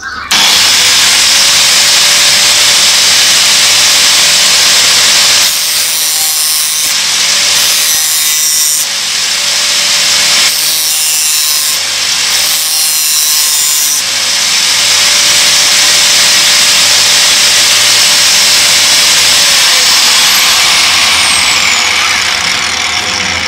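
Angle grinder held in a bench vise running at speed with a steady motor whine. From about 5 to 14 seconds a small piece of metal is pressed against the disc and the sound breaks up unevenly under the grinding. It cuts off at the very end.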